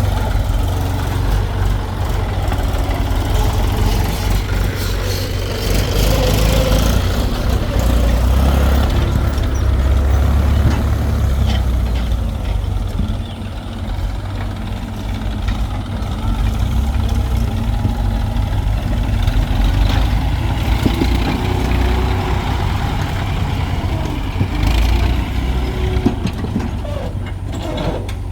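Diesel engine of a JCB 3DX backhoe loader running under varying load while digging and loading mud. A tractor engine is heard with it. The engine note is loud and low, rising and easing as the machine works, with a few knocks.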